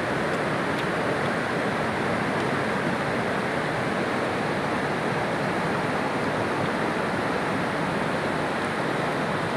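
Steady rushing of a fast-flowing river running over rocks.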